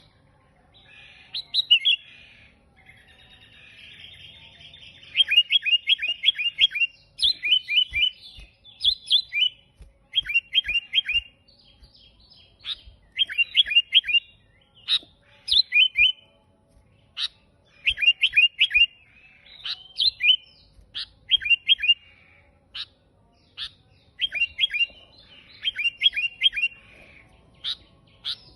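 Sooty-headed bulbul singing: short bursts of quick, clear chirps, repeated every second or two. About two seconds in comes a few-second stretch of buzzy, rasping call.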